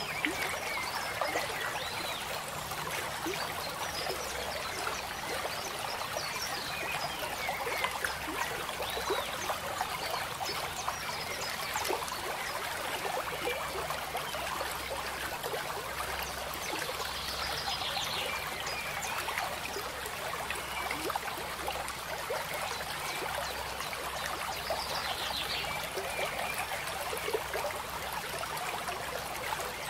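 Steady babble of trickling water, like a small stream, with a few faint high chirps.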